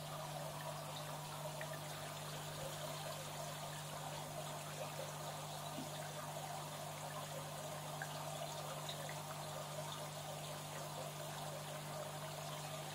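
Aquarium filtration running: water steadily trickling and splashing into the tank over a low steady hum.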